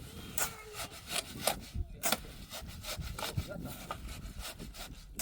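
Rhythmic scraping strokes of a hand tool, irregular at first and then about three a second.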